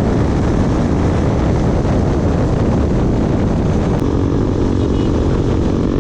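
KTM Duke 200's single-cylinder engine running loudly through an aftermarket Akrapovic-style slip-on exhaust. About four seconds in, the sound changes abruptly to a steadier, more even engine note.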